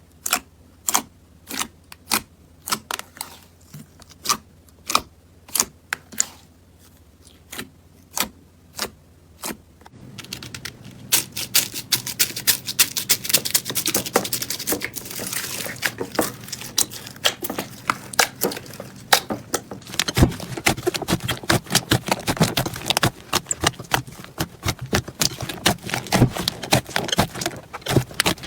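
Slime being pressed and stretched by hand, giving sharp, separate clicks and pops about twice a second. About a third of the way in it turns into a dense crackling with many pops close together.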